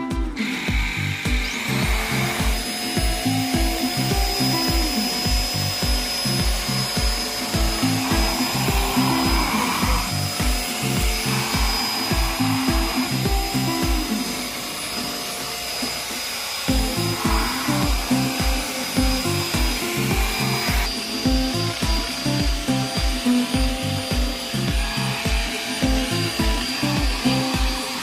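PerySmith Sonic Pro X5 cordless vacuum's motor running with a steady high whine that spins up about two seconds in, its motorized anti-dust-mite brush working over a bedsheet. Background music with a steady beat plays throughout.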